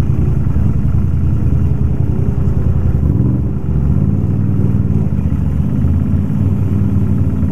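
Can-Am ATV engine running close by at low to moderate revs, a steady low rumble with a brief dip about three and a half seconds in.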